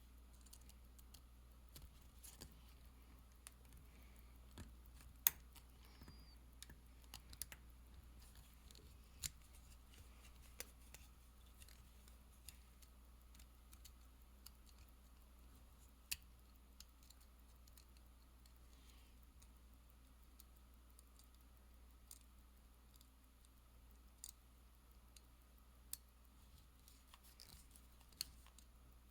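Near silence broken by about a dozen sharp, small clicks at irregular intervals: small metal tools and tiny screws being handled during the disassembly of a mechanical watch.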